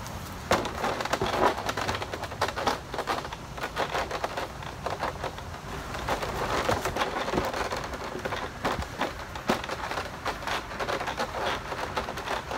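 Running footsteps crunching on wood-chip mulch, then shoes and hands knocking and scraping on a wooden obstacle wall during a climb over it: a string of irregular knocks and crunches over a steady rustling hiss.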